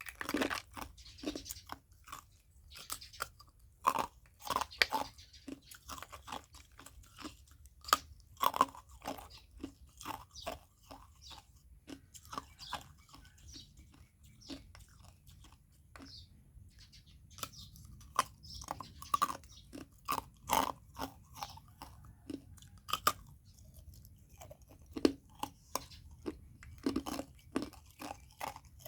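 Ice being bitten and chewed in the mouth: irregular runs of sharp, crisp crunches, with quieter stretches about halfway through and again near the end.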